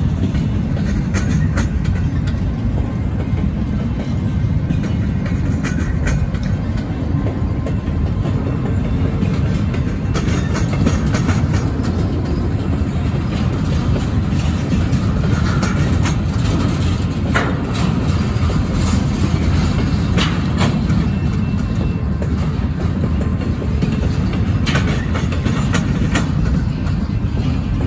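Empty intermodal well cars of a CSX freight train rolling past: a steady rumble of steel wheels on rail, broken by scattered clicks and clanks.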